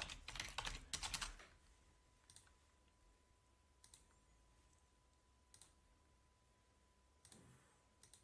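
Computer keyboard typing: a quick run of keystrokes over the first second and a half, then mostly quiet with a few single clicks spaced a second or two apart. A faint steady tone hums underneath.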